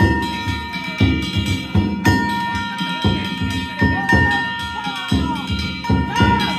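Danjiri festival narimono: a large taiko drum struck about once a second under the steady ringing of hand-held kane gongs, with voices calling out now and then.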